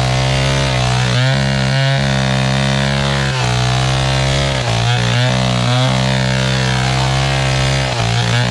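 Two-stroke chainsaw running at high revs and cutting into a coconut trunk, its engine pitch dipping under load and picking back up several times.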